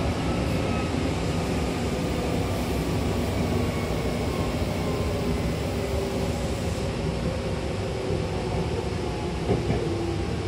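Hankyu train running, heard from inside the carriage: a steady rumble of wheels on the rails with a faint motor whine that slowly falls in pitch as the train slows toward its next stop. A brief knock comes near the end.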